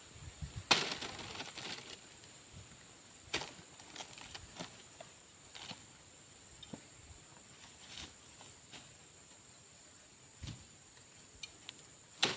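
Occasional brief rustles and knocks, the loudest about a second in, over a steady high-pitched hiss.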